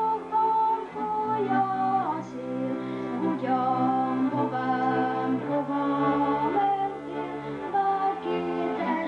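A boy's voice singing a Hungarian folk song from Szatmár over a held instrumental accompaniment with a moving bass line, the melody gliding between notes.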